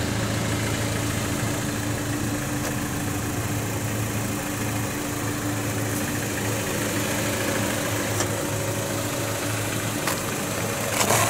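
A car engine idling steadily, an even low hum that does not change.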